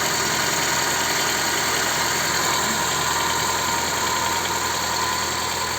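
Honda Civic 4D engine idling steadily on a cold start, with a light tapping knock in its running.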